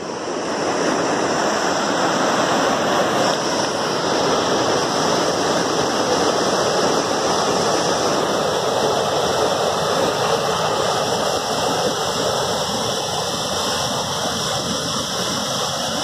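Fast mountain stream rushing over rocks and through a concrete channel: a steady, loud wash of water.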